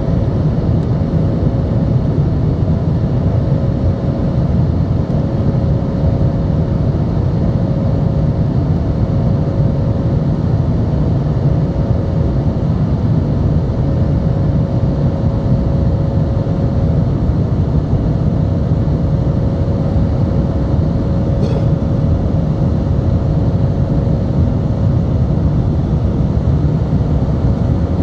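Airbus A320 cabin noise in flight after take-off, heard from a window seat over the wing: a loud, steady rush of jet engine and airflow, with a steady hum running through it.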